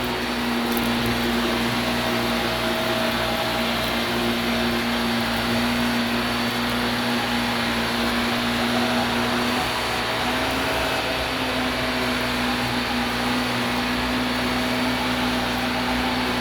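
Vacuum cleaner running steadily, its motor hum holding one pitch that steps up slightly about ten seconds in.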